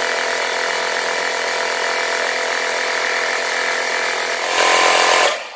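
Built-in 120 PSI air compressor of a Stanley FatMax jump starter running steadily, pumping air through its hose into an under-inflated car tyre. It gets louder near the end, then cuts off abruptly as it is switched off.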